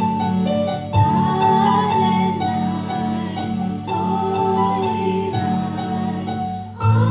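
Keyboard music opening a Christmas song, melody notes over a steady held bass, with a fuller section coming in near the end.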